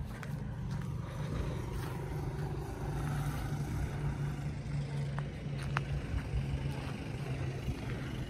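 A heavy truck's engine running steadily with a low, even hum, with a couple of faint ticks about five to six seconds in.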